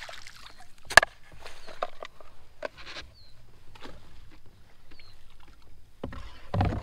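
Knocks and clatter of gear being handled in a plastic kayak as a fish-measuring board is put down, with one sharp knock about a second in and a run of louder knocking near the end.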